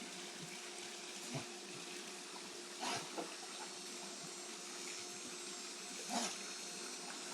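Water fountain running with a steady splash of water, broken by a few short louder sounds, the loudest about six seconds in.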